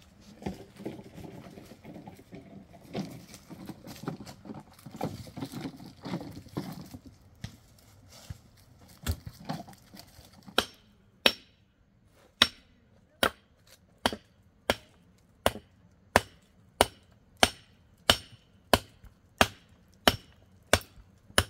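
A long bar striking earth and stones at the base of a wooden post, tamping it in. The blows are sharp and steady, about three every two seconds, starting about halfway through.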